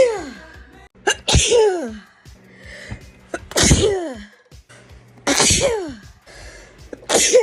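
A sneeze attack: repeated loud sneezes about every two seconds, each a sharp hissing burst followed by a voiced 'choo' that falls in pitch.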